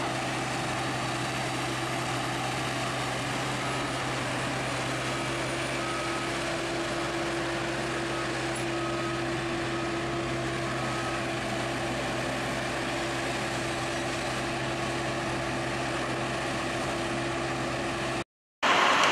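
Diesel engine of a sugarcane grab loader running steadily under load as it swings and lifts cane, with faint short beeps repeating about once a second for several seconds in the middle. The sound drops out briefly near the end.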